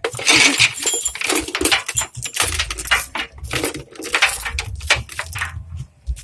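Mini excavator's steel tracks and metal parts clanking and rattling in quick, irregular knocks over a low engine rumble that comes and goes.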